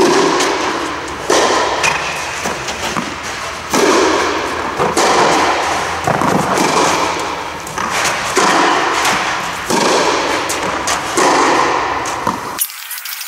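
A tennis rally: ball struck by rackets about every one to two and a half seconds, each hit followed by a long echo that fades slowly.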